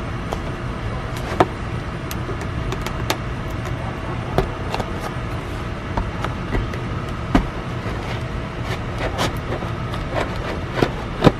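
Cardboard toy box being handled and pried open by hand: scattered short taps, clicks and scrapes, a few louder ones near the end, over a steady low rumble.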